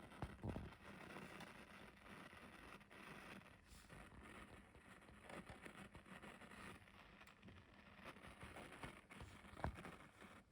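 Faint irregular crackling and hiss with occasional sharp pops, coming from the center speaker of a Pioneer VSX-326D AV receiver. This is an intermittent fault that comes back even after factory resets and a change of speaker cable.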